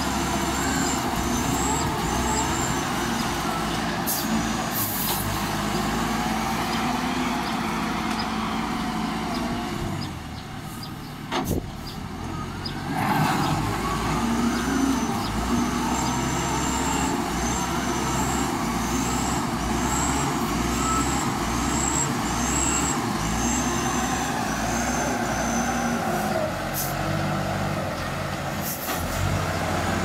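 Diesel engine of a LiuGong wheel loader running under load as it pushes dirt with its bucket, easing off briefly about ten seconds in and revving back up about three seconds later.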